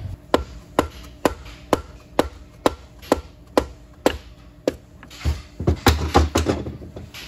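Sharp metal clicks about twice a second as a clutch drum is rocked and worked loose inside an automatic transmission case, then a quick run of louder metal knocks and clatter about five seconds in.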